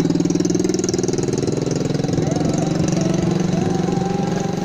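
An engine idling steadily with an even low pulse.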